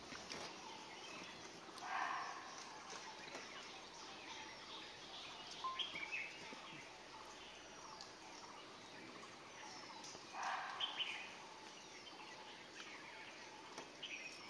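Quiet forest ambience with scattered faint bird chirps, and two brief louder calls or voices, one about two seconds in and one around ten seconds in.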